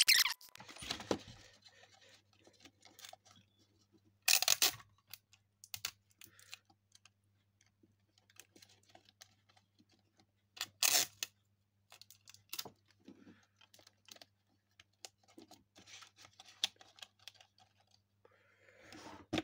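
Thin card being handled and folded into a box: scattered small rustles and clicks, with two short, louder rustling, tearing-like noises about four seconds in and again about eleven seconds in.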